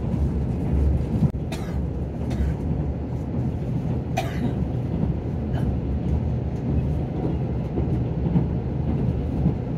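Running noise of an electric limited express train heard from inside the car: a steady low rumble, with a few brief clicks or knocks scattered through it.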